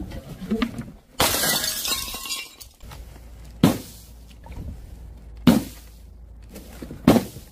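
Glass shattering: a long crash with scattering fragments starting about a second in, followed by three sharp impacts roughly two seconds apart, as dropped objects hit a board of upright nails and burst.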